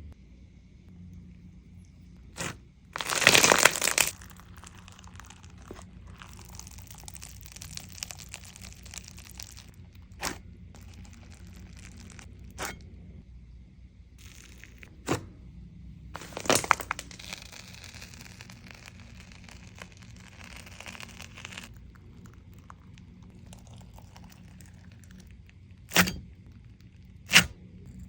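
Slime being handled, giving scattered sharp pops and crackles, with a few longer stretches of soft crinkling. The loudest crackle comes about three seconds in and another near the middle.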